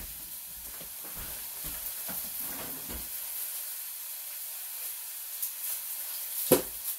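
Food sizzling softly in a pan on the stove, a steady hiss. A few soft thumps come in the first three seconds, and a single sharp knock sounds near the end.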